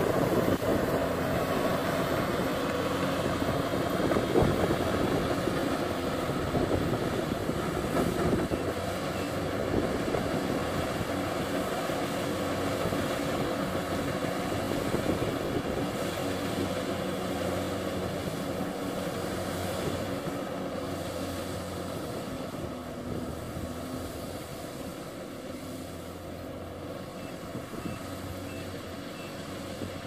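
Kubota DC-70G Plus combine harvester running steadily with its diesel engine under load as it harvests rice, growing gradually fainter as the machine moves away.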